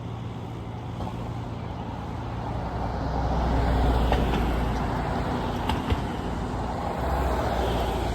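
Cars passing on the road, the tyre and engine noise swelling to a peak about halfway through and rising again near the end, over a steady low fan hum.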